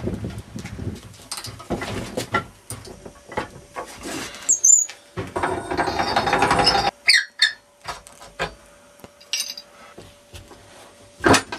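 Knocks and clatter of a push lawnmower being handled and set on a wooden workbench, with a burst of scraping and rattling about five to seven seconds in and a few short high squeaks. A sharp metal clack comes near the end as a pipe wrench goes onto the engine's starter clutch.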